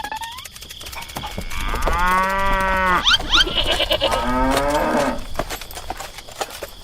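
Two long, drawn-out animal calls of about a second each, with a few short high squeaks between them.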